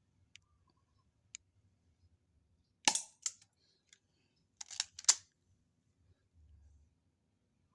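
Spring airsoft pistol firing and being handled: sharp snaps and mechanical clicks, a loud pair about three seconds in and a quick cluster of four or five about five seconds in, with a few faint ticks before.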